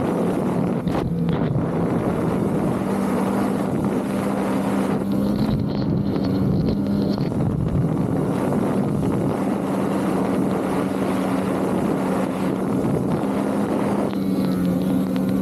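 Polaris 850 Assault snowmobile's two-stroke engine running at a steady speed, with wind noise on the microphone.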